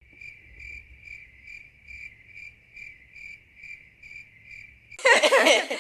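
Cricket chirping: an even, high-pitched chirp repeating a little over twice a second, cutting off sharply about five seconds in.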